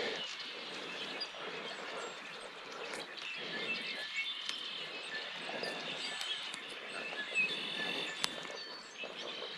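Birds chirping now and then over a steady rushing outdoor background, with one sharp click about eight seconds in.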